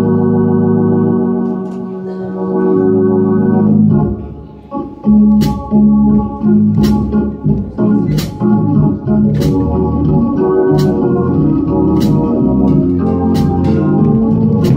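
An organ holds sustained chords, then about four seconds in breaks into a rhythmic part as a drum kit joins, with sharp drum or cymbal hits about every second and a half.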